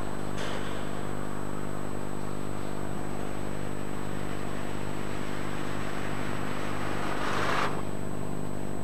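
Steady low hum, with a rushing swell that builds and then drops about seven and a half seconds in.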